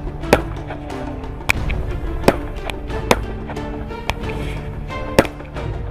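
Background music over the sharp cracks of a WENUS multi-shot firework cake firing shot after shot, about five cracks at uneven intervals.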